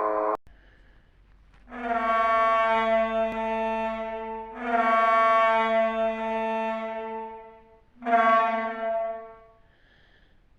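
Reconstructed dinosaur call: three long, steady, horn-like honks on the same pitch, the third shorter than the first two.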